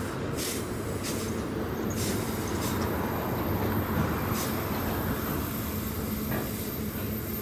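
Freight train's wagons rolling past: a steady rumble of wheels on rail with a few irregular clicks.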